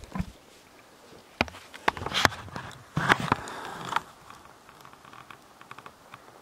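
Rustling and crunching of movement through dry forest undergrowth: a few sharp snaps between about one and two seconds in, then about a second of steady rustling, followed by faint scattered ticks.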